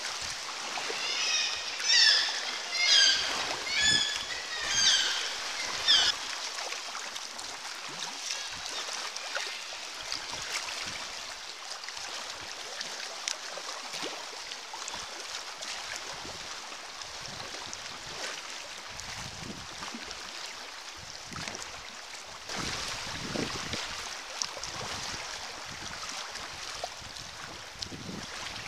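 Seabirds calling, about five loud calls in the first six seconds, over the steady wash of sea water and the splash of kayak paddle strokes.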